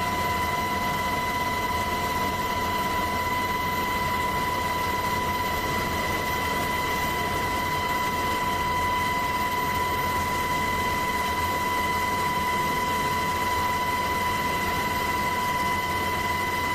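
Steady drone of the aircraft filming from the air, with a constant high-pitched whine over it.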